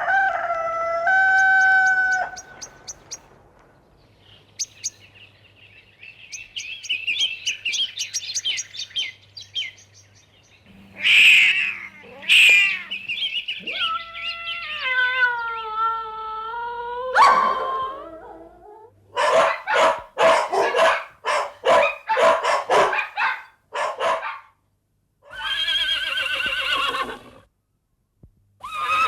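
A run of farmyard and animal sound effects: a stepped crowing call at the start, then birds chirping, then a long bending call like a cat's yowl, then a quick run of dog barks, and another animal call near the end.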